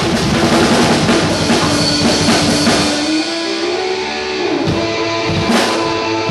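Loud rock music: guitar and drum kit playing together.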